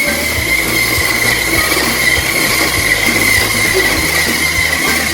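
Toy RC racer car's small electric motor and gears whining at a steady high pitch as the car drives.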